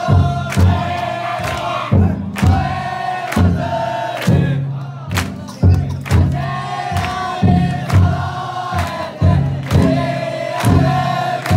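Futon daiko float's big taiko drum struck in a slow, uneven beat, often in pairs, with a crowd of bearers chanting long held calls in unison between the strokes.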